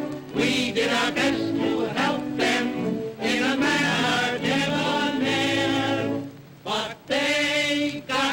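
A group of men singing together in chorus, holding several long notes, recorded on a 1929 sound-film soundtrack. The singing breaks off briefly about six and a half seconds in, then comes back.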